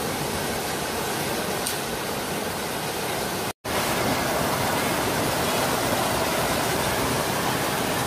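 Small waterfall cascading over rocks into a pool: a steady rush of falling water. It breaks off for an instant a little before halfway, then resumes slightly louder.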